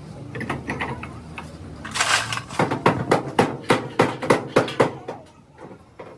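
A quick run of about nine hammer blows on metal, some three to four a second, in the middle, typical of panel beating on a car body, after a short scraping burst.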